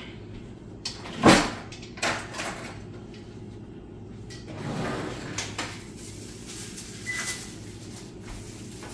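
Kitchen handling noises: one sharp knock about a second in, the loudest sound, then a lighter knock, a soft rustle near the middle and a few small clicks.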